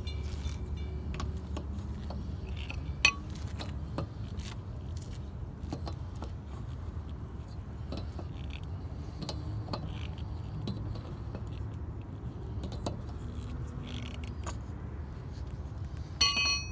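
Lug nuts being lightly tightened onto a car wheel by hand with a lug wrench and socket: scattered metal clinks and ticks, one sharp clank about three seconds in, over a low steady rumble.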